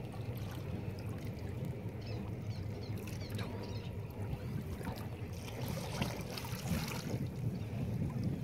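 Water lapping and trickling against shoreline rocks over a steady low rumble, with scattered small splashy ticks that are busiest a little past the middle.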